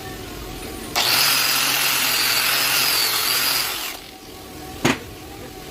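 A power tool runs for about three seconds, a high whine over a harsh hiss, then stops. About a second later there is a single sharp knock.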